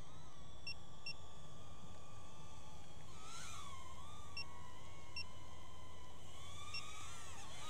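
DJI Neo 2 mini drone's propellers whining in flight, the pitch bending up and down as it swings through a 180-degree drift manoeuvre. A few short high beeps sound now and then.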